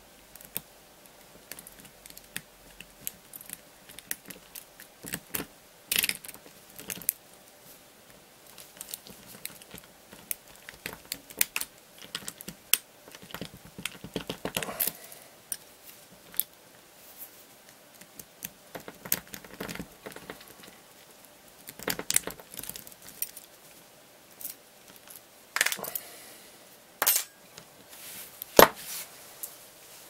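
Steel lock pick and tensioner scraping and clicking in the keyway of a brass Union oval cylinder lock as the pick is wriggled in and out under light turning force. The clicks are small and irregular throughout, with a few louder clicks and knocks, the loudest near the end.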